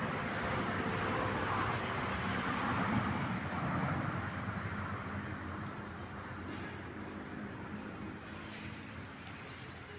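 Outdoor ambience: a steady rushing noise that eases off after about four seconds, with a thin, high, steady whine above it.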